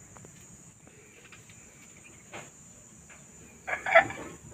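A chicken calls once, loud and short, about four seconds in, over a faint, steady high-pitched insect-like hiss.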